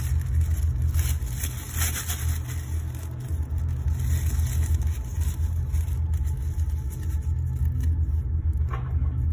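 A steady low rumble throughout, with the light crinkling of a thin black plastic bin bag being handled and knotted over it, most noticeable about two seconds in and again near the end.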